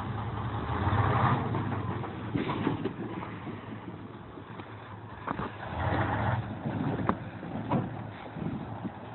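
Diesel log truck's engine running and revving twice as the truck pulls forward from under its load of logs, with a few sharp knocks in between.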